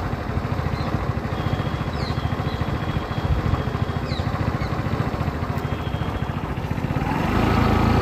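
A small engine running steadily with a fast, even putter, growing louder near the end. A few faint bird chirps sound above it.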